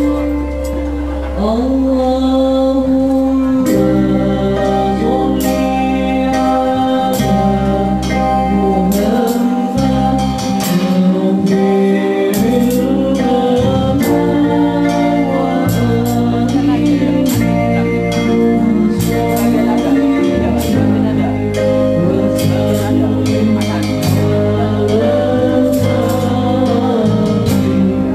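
A small band of electric guitars and keyboard playing through an amplifier, with a singer's melody and a steady percussion beat.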